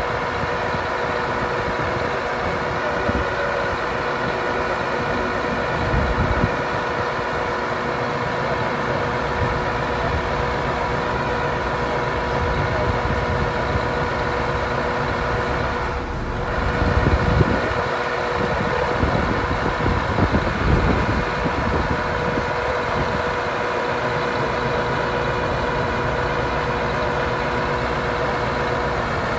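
Scania R144-530 truck's 14-litre V8 diesel idling steadily, with several even humming tones over the engine note. There are a few brief low swells of noise, about six seconds in and again after the middle.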